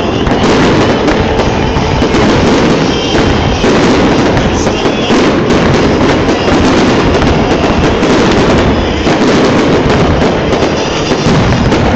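A fireworks display, with aerial bursts and sparking ground fountains going off together in a dense, unbroken barrage of bangs and crackling.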